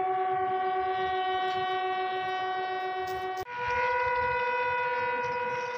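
Bugle sounding the flag-lowering call: one long held note, then about three and a half seconds in a break to a second long held note a step higher.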